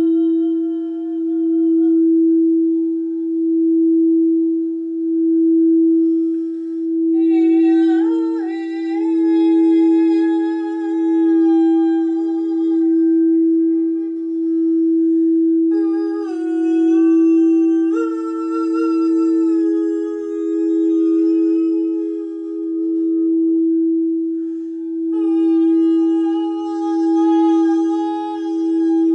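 Quartz crystal singing bowl rubbed around the rim with a mallet, ringing one steady sustained tone that swells and fades about every two seconds. A woman's voice tones long held notes over it in several phrases, sliding in pitch at times.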